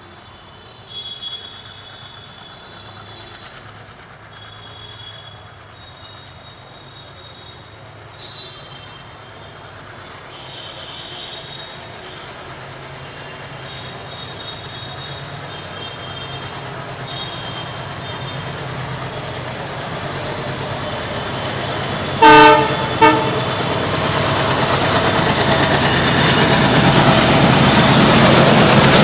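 Twin ALCo WDM-3D/WDM-3A diesel locomotives chugging under load, growing steadily louder as they pull closer. Two short horn blasts come about two-thirds of the way through, the second briefer, and these are the loudest sounds. Faint high squeals come and go in the first half.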